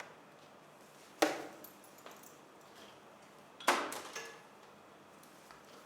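Two sharp knocks of hard parts, about two and a half seconds apart, each with a short ring, as the casing and parts of an ICU ventilator are taken apart and handled.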